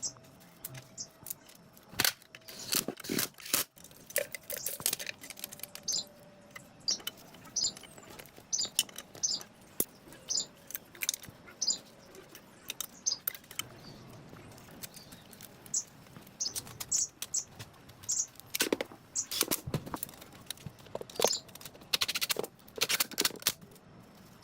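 Scattered sharp clicks and knocks of hand-tool work on metal parts, in clusters near the start and again near the end, with a run of short high chirps in between.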